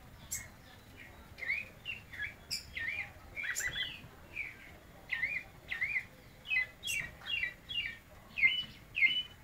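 A caged zorzal blanco (a thrush) singing a string of short whistled notes and hooked slurs, about two a second, getting louder toward the end, with a few sharp high chips among them.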